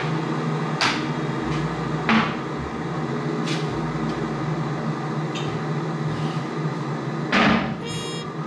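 Kitchen handling sounds over a steady machine hum: four separate knocks and clatters, like cupboard doors and dishes, the loudest near the end. A short high ringing follows it.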